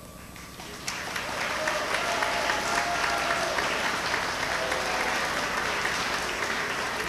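Audience of schoolchildren clapping, swelling over the first second or so and then holding steady, with a few voices mixed in.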